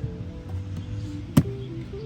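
Background music with steady tones, and one sharp click about one and a half seconds in from plastic trim being pried with an anti-marring tool.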